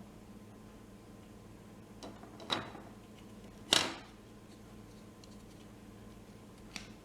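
A few sharp knocks and clicks of small hard objects being handled and set down, the loudest a brief clatter about halfway through, over a steady low hum.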